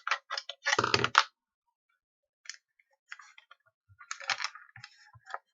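Plastic casing of a burglar alarm sensor being prised open by hand: a cluster of sharp clicks and a heavier knock in the first second or so, then scattered small clicks and taps from about three seconds in.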